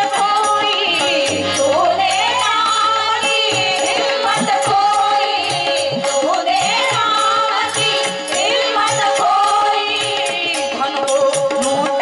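A woman singing a devotional bhajan over a steady held drone note, with small hand cymbals clicking a quick, even beat.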